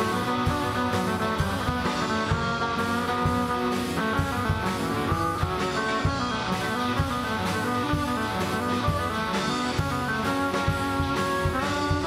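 Live rock band playing an instrumental passage: two electric guitars over electric bass and a drum kit, with a steady beat.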